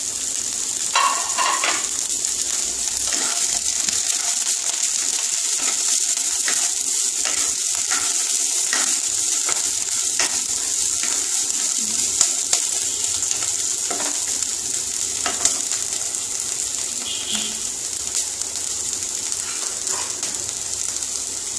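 Chopped vegetables (carrot, beans, cauliflower, capsicum) sizzling steadily in hot vegetable oil in a non-stick kadai. A wooden spatula scrapes and taps against the pan now and then as they are stirred.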